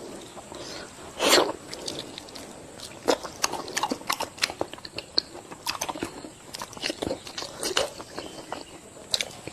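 A person eating, with many short crunchy bites and chewing sounds and a louder burst about a second in.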